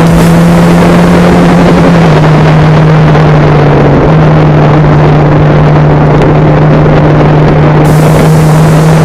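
Motorcycle engine running hard at nearly steady revs, its pitch shifting slightly about two and four seconds in, under heavy wind noise on an onboard camera.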